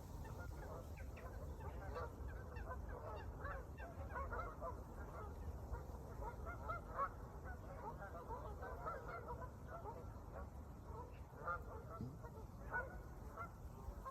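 A large flock of birds calling at once: a dense, continuous chatter of short overlapping calls over a low rumble.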